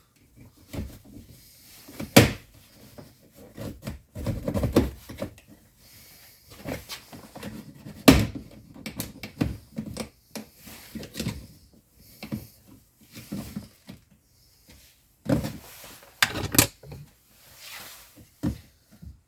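Plastic interior door trim covers on a 2014 VW Touareg being worked loose and handled: an irregular run of knocks, clicks and rattles, with sharp snaps about two seconds in, about eight seconds in and near the end.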